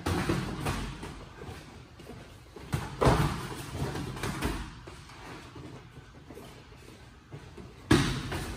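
Boxing gloves landing punches in sparring: sharp thuds that echo in the hall, several in quick succession at the start, a loud one about three seconds in and another near the end.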